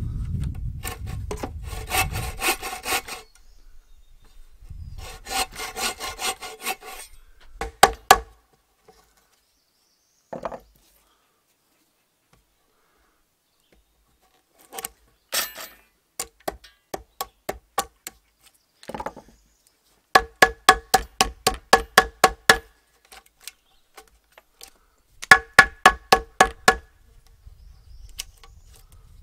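A frame saw cuts kerfs into a spruce log in two short bouts of rasping strokes. Then a hammer drives a chisel to split out the waste wood between the cuts: runs of quick, ringing metal-on-metal strikes, about four a second.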